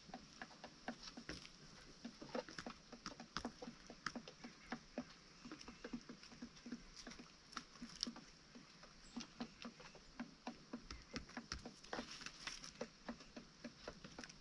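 Chickens foraging close by: soft, rapid, irregular taps and scratches, several a second, of beaks and feet on the ground or feed.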